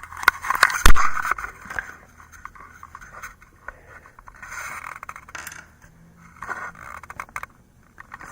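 Close handling noise: scraping and rustling right at the microphone, with one loud knock about a second in, then scattered lighter clicks and brief rubbing sounds.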